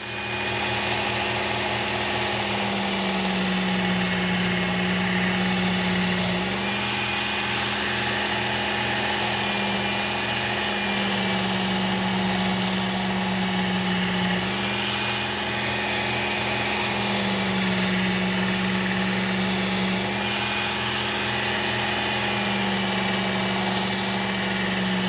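Work Sharp Ken Onion Edition belt sharpener running with a Trizact A30 belt, refining a hatchet edge after the burr has been raised on the coarser belt. A steady motor hum with belt grinding, its pitch shifting slightly every few seconds.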